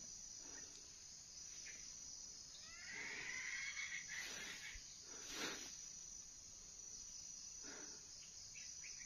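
Insects keep up a steady high drone in the plantation undergrowth. A short call with bending notes sounds about three seconds in, and there is a brief sharp sound a couple of seconds later.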